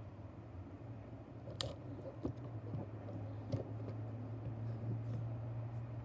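Faint clicks and rustling from a small diecast toy truck being handled and turned in the hand, three sharper clicks among them, over a low steady hum.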